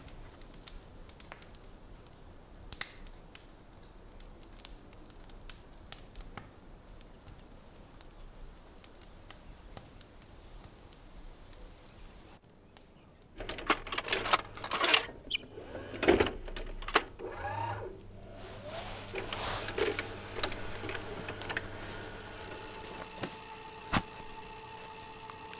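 Fur and cloth rustling and crackling as they are handled, with scattered small clicks; the rustling is densest and loudest in the middle. A low steady hum with a couple of held tones comes in near the end.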